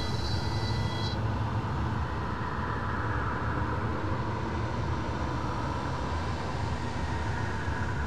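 Synthesised electro-acoustic drone: a dense, noisy wash over a low rumble, with a few thin high tones that stop about a second in.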